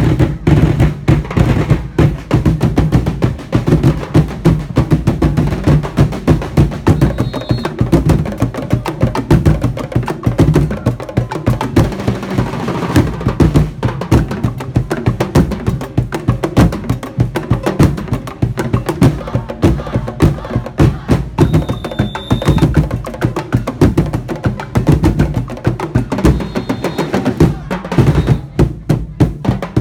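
Live drum ensemble playing a fast, steady, driving beat, with many drums struck together and a continuous stream of hits.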